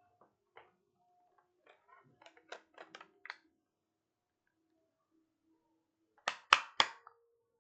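A scatter of light clicks and taps, then three sharp, louder clicks in quick succession near the end.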